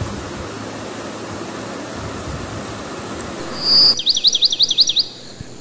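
Chopped onion, green chilli and garlic sizzling in oil in a steel kadai. About four seconds in the sizzle cuts off and a bird calls with a quick run of about ten sharp, high chirping notes.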